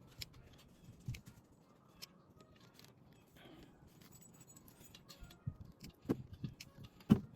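Scattered small clicks and scrapes of multitool pliers picking tangled hair out of a Roomba brush, with the sharpest click near the end.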